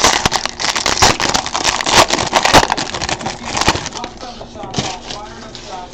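Crinkling and rustling of a foil trading-card pack and its cards being handled: dense, irregular crackling for about four seconds, then quieter. A television voice talks faintly underneath.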